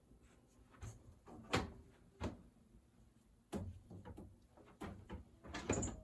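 Knocks, bumps and scrapes of a screen window panel being worked into a storm door's frame: a string of separate knocks, the loudest about one and a half seconds in, with a quicker rattling cluster near the end.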